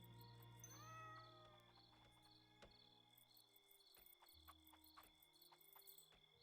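A domestic cat meowing once, faintly, about a second in: a single call that rises and then holds.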